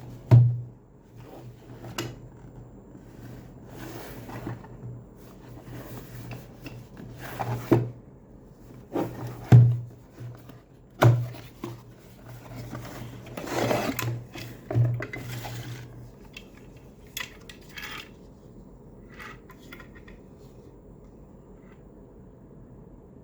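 Hard objects being handled: a series of sharp knocks, clicks and clinks with some rubbing, over a steady low hum that stops about two-thirds of the way through.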